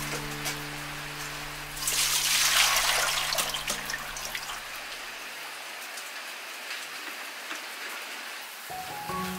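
Steady rain patter, with a brief loud splash about two seconds in as liquid is poured from a metal bowl onto chopped vegetables in a plastic colander. Background music fades out midway and returns near the end.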